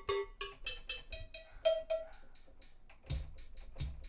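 Sampled Latin drum kit and percussion sounds from a converted Yamaha Motif library, played back in Kontakt: a run of short pitched hits, then from about three seconds in a beat with a bass drum.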